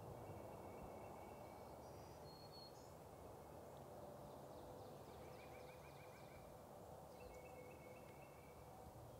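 Near silence: faint spring woodland ambience with distant songbirds giving short high calls and one quick trill about halfway through.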